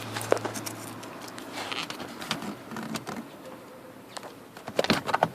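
Small clicks and scrapes as white plastic parts are worked out of a car door by hand. There is a sharp click about a third of a second in, and a cluster of louder clicks and knocks near the end.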